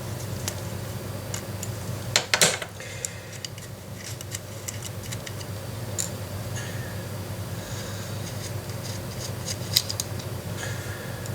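Scattered small clicks and scrapes of an Allen key and hard plastic parts being handled while the screws on the base of a polymer pistol grip are undone, with a louder rattle of clicks about two seconds in.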